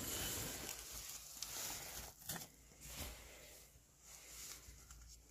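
Rustling of bedding and fabric with handling noise close to the microphone, with a few sharper clicks about two and three seconds in.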